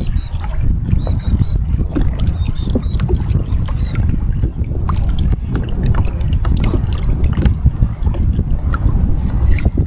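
Wind buffeting the microphone with a steady low rumble, over scattered light ticks and splashes of water around a kayak.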